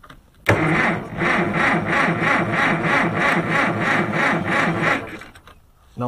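Farmall 400's four-cylinder gas engine being cranked by its starter for about four and a half seconds, boosted by a jump pack. It turns over slowly and labours at about three or four compression pulses a second. It never catches, and the starter stops near the end. The slow turning points to a weak battery or an engine that is turning hard.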